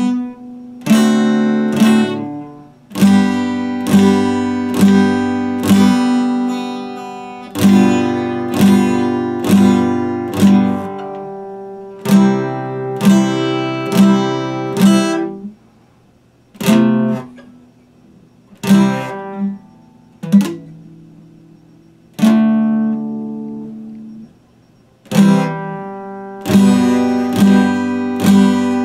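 Acoustic guitar played as strummed chords, each chord struck sharply and left to ring out. Through the middle the strums thin out to single chords with short gaps as they die away, then come closer together again near the end.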